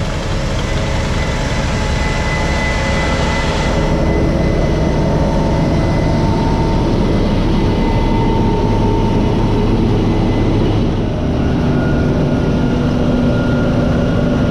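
Heavy diesel farm machinery running steadily: a low engine drone with several steady whining tones above it. The mix changes about 4 s in and again about 11 s in.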